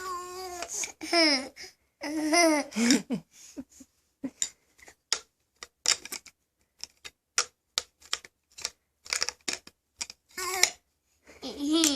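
High-pitched laughing, squealing vocal sounds that slide down in pitch for the first three seconds and again near the end. Between them comes a string of short, sharp clicks, a few each second.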